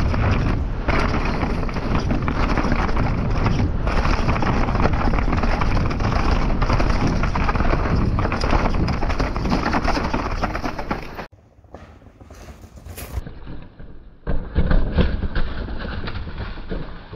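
Mountain bike descending a rough downhill trail at speed: dense wind and tyre noise with frame and wheel rattle. It drops away suddenly about eleven seconds in, then picks up again with a run of uneven knocks and clatters.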